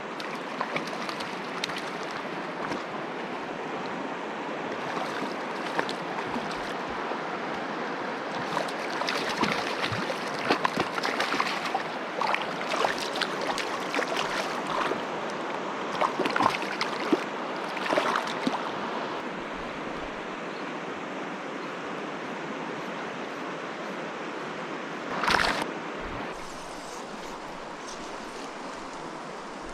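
Mountain stream water rushing steadily, with scattered small clicks and splashes through the middle and one short louder sound about 25 seconds in; the rush is a little quieter after that.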